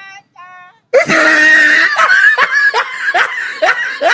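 A sudden loud cry about a second in, then loud laughter in a quick run of ha-ha bursts, two or three a second.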